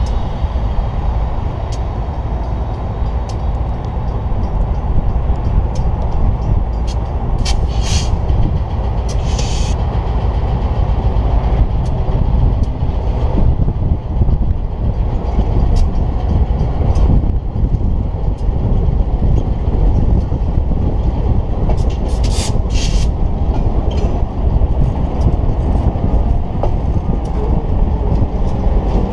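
Two GE diesel locomotives, a U23B and a B23-7, each with a 12-cylinder 7FDL engine, running as they move slowly past with a third, shut-down locomotive in tow, wheels rolling on the rails. A few brief high-pitched noises stand out, once about a quarter of the way in and again past two-thirds.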